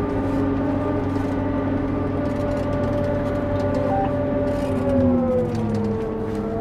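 John Deere 8800i self-propelled forage harvester running while it cuts, a steady droning hum with a whine heard from the cab. About five seconds in, the pitch drops, then starts to climb again.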